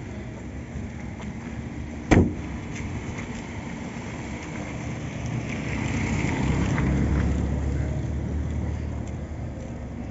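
A car door shutting with one sharp thud about two seconds in, then a low vehicle rumble that swells and fades around the middle.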